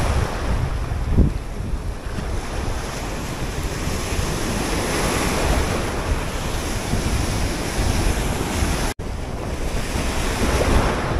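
Sea surf surging and washing over a shallow rock reef, with wind buffeting the microphone as a heavy low rumble. The sound breaks off for an instant about nine seconds in.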